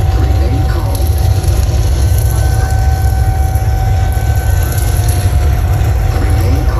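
Loud live hip-hop concert sound through a big PA, recorded on a phone: heavy, continuous distorted bass with a steady high note held over it, and faint crowd voices underneath.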